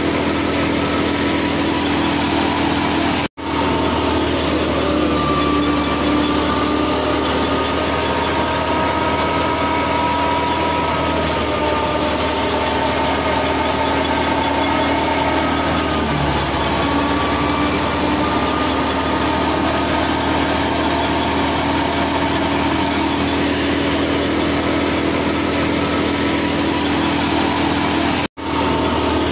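The small motor of a miniature model thresher machine running steadily while it threshes grain, a humming whine whose pitch wavers slightly. The sound cuts out for an instant about three seconds in and again near the end.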